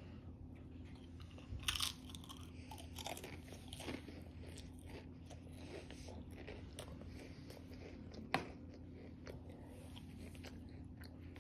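A Pringles potato crisp bitten with a crunch about two seconds in, then chewed, with faint crunching for a couple of seconds that fades into quieter chewing. A single sharp click about eight seconds in.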